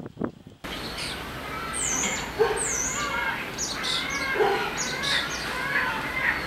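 Small birds chirping and calling, with quick high whistled glides, over a steady hiss that comes in abruptly less than a second in. Just before it, a few short knocks.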